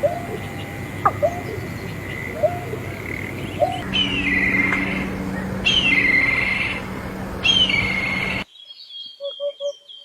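Several wild birds calling: short upward-sweeping calls about once a second, joined by descending chirps, then after an abrupt cut about eight seconds in, quick triple notes and high twittering from other birds.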